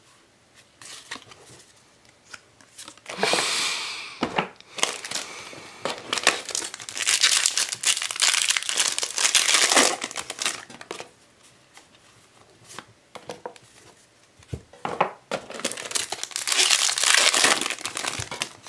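Foil Yu-Gi-Oh booster pack wrappers crinkling and tearing as packs are ripped open and handled, in three bursts with quieter pauses between.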